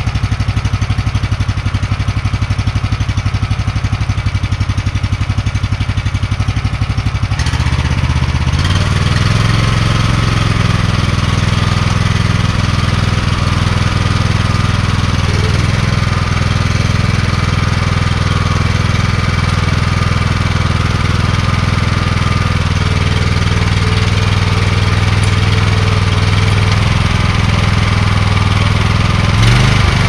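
Grillo G110 walk-behind tractor engine running steadily, its speed rising about eight seconds in and then holding at the higher pitch.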